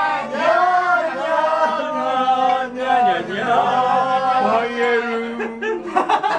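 A group of men and women singing together to an acoustic guitar, ending on a long held note, with a few sharp knocks near the end.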